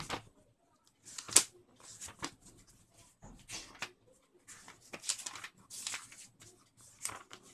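Thin paper pages of a thick book being turned by hand: a run of papery rustles and flaps, about six in all, the sharpest about a second and a half in.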